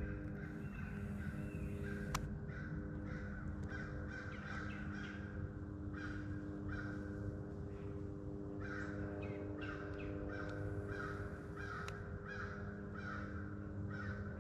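Crows cawing over and over, the calls coming in quicker runs in the second half, over a faint steady hum. Two sharp clicks stand out, about two seconds in and near the end.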